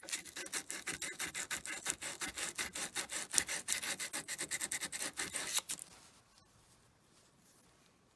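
Sandpaper rubbing back and forth on the seam of a metal ring in quick, even strokes, several a second, cleaning the joint for soldering; the strokes stop about six seconds in.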